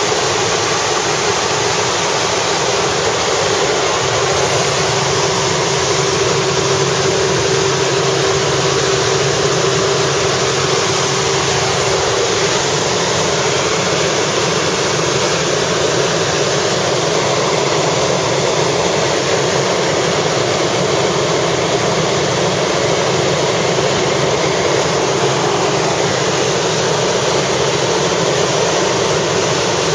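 Helicopter in flight heard from inside the cabin: a steady, loud drone of rotor and engine.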